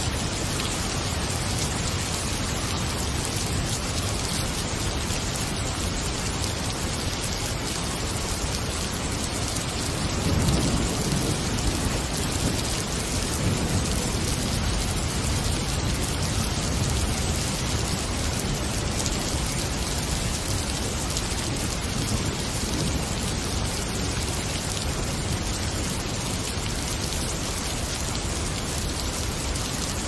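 Steady rain falling, with a low rumble of thunder swelling about ten seconds in.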